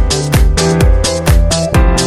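Electronic dance backing music with a steady, driving beat of deep kick-drum hits, about two a second, under sustained synth notes.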